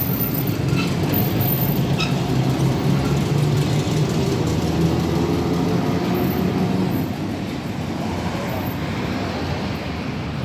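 Series 2800 articulated tram passing close by on street track: a steady low rumble of wheels on rail with a hum, and a couple of clicks in the first two seconds. It gets quieter about seven seconds in as the tram pulls away.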